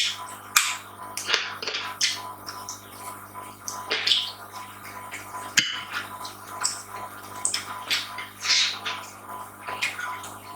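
Close-miked eating sounds: wet chewing and lip smacks in quick irregular bursts, with a faint steady electrical hum underneath.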